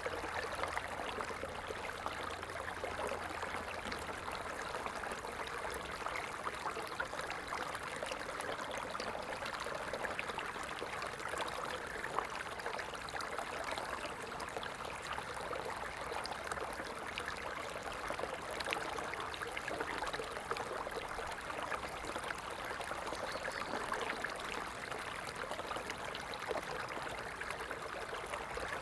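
Stream water flowing steadily: an even rush of running water with many small splashes.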